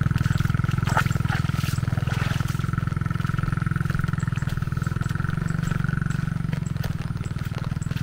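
A small engine running steadily close by with a fast, even throb; a thin higher whine over it fades out near the end.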